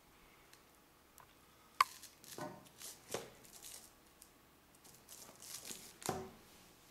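Cardboard phone box, paper and scissors being handled on a stone countertop: a sharp tap about two seconds in, then several short scrapes and rustles.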